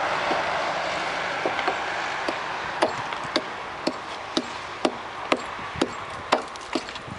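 A hand-lever tool clamped on the rail at a thermite weld, worked with a long bar, giving sharp metallic clicks about two a second. Under them a broad hiss fades away over the first few seconds.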